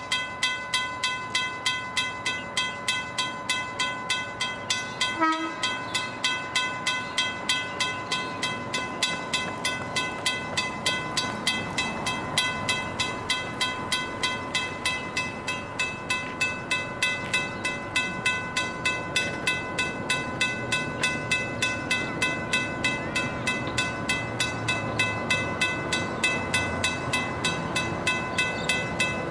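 Level crossing's mechanical bell ringing rapidly, about five strikes a second, each strike ringing on at the same pitch. A low rumble builds under it from about a third of the way in, as a freight train approaches the crossing.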